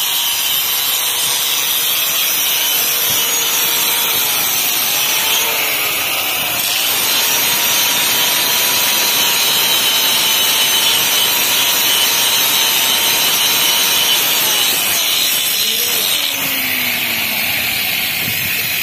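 Handheld electric angle grinder grinding steel: a steady, loud hiss of the disc against the metal over the motor's whine, which dips and recovers as the disc bites, about five seconds in and again near the end.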